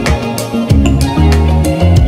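Background music with drums and a bass line.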